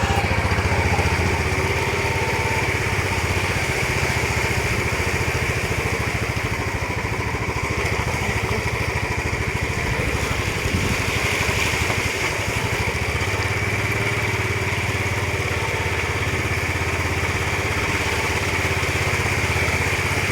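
Motorcycle engine running steadily, with even firing pulses.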